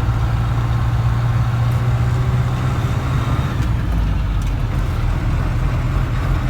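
Diesel engine of a GAZon Next truck running steadily under way, heard from inside the cab as an even low hum with road noise.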